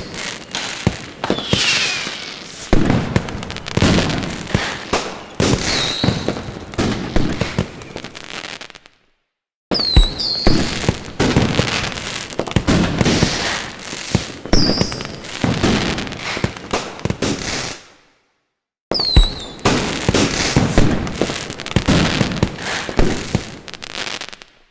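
Fireworks going off: a dense run of bangs and crackling cracks, with short, high, falling whistles mixed in. They come in three stretches, each cut off by a brief silence, the first about nine seconds in and the second about eighteen seconds in.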